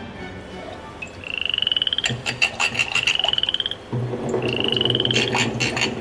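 A high trilled animal call, rising slowly in pitch, sounds three times for about a second each. Between and under the calls, a paintbrush clinks and rattles against a ribbed glass water jar in quick runs.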